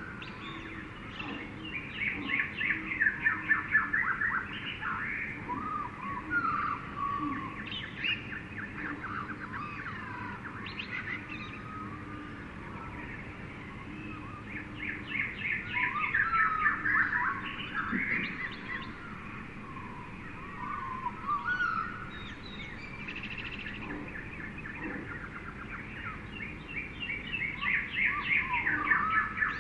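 Several birds chirping and trilling together over a steady background hiss, in louder bouts of rapid twittering that come and go.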